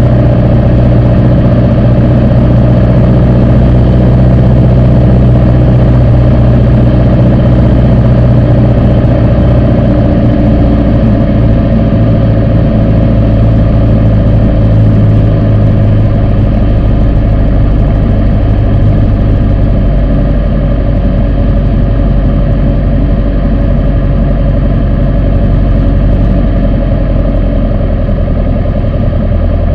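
Piper PA-28's piston engine and propeller running steadily, heard from inside the cockpit, as the plane lands and rolls out on the runway.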